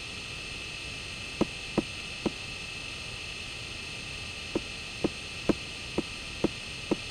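Steady hum and hiss of the recording, with a series of light clicks: three about a second and a half in, then six more about half a second apart from about four and a half seconds in. The clicks fit footsteps for a walking LEGO C-3PO minifigure.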